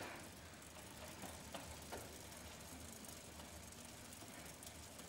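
Near silence: faint room tone with a steady low hum and a couple of soft clicks about one and a half to two seconds in.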